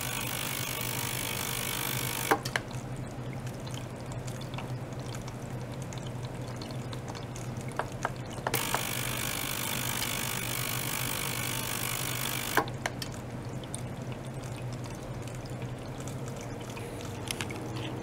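An ultrasonic cleaner with a water-filled beaker runs under a steady low hum from the small circulation pump and water flowing through the tubing. A hissing layer of cavitation noise from the water is there for about the first two seconds and again for about four seconds in the middle. Each time it starts or stops there is a short click.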